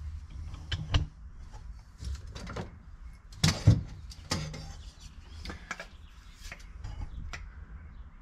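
Scattered light knocks and rustles of handling and movement inside a car cabin, the loudest pair of knocks about three and a half seconds in.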